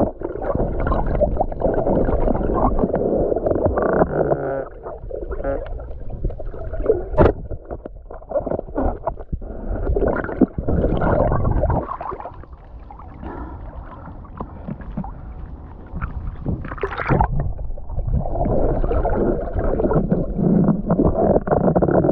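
Muffled water sloshing and gurgling around a waterproof action camera at or under the sea surface, with a few sharp knocks. It goes quieter for a few seconds in the middle.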